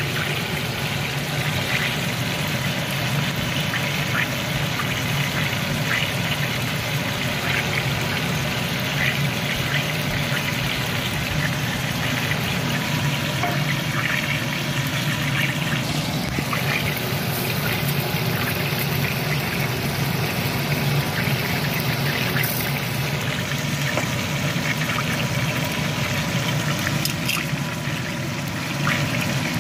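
Marinated steak sizzling in oil and its own juices in a frying pan: a steady bubbling fizz with many small crackles and pops.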